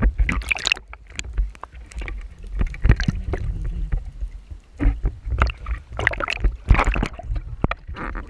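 Water splashing and sloshing with irregular knocks and clicks, over an uneven low rumble.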